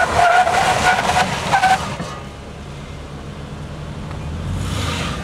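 SUV tyres squealing under a hard panic stop for about two seconds, the squeal wavering with a few short chirps, then breaking off. A low steady rumble follows as the vehicle sits at rest.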